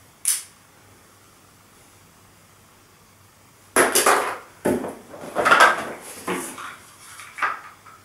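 Unboxing handling noise: hard plastic vacuum-cleaner parts, the caster wheels among them, clatter and their packaging rustles as they are taken out of a cardboard box. It starts about four seconds in, after one brief rustle near the start.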